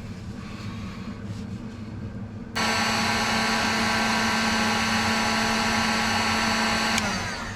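An electric power tool's motor switched on abruptly, running at a steady high whine for about four and a half seconds, then switched off and winding down.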